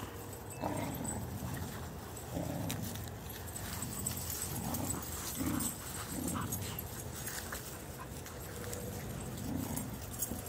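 A pack of dogs playing together, making short dog noises that come every second or so at irregular intervals.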